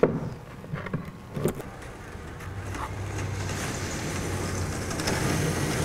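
Cordless drill-driver running steadily as it backs a screw out of a chrome deck fitting on a wooden boat, starting about two and a half seconds in, after a few light clicks of handling.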